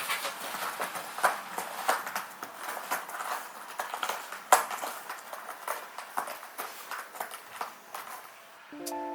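Irregular light taps and clicks, the loudest about halfway through. Music starts just before the end.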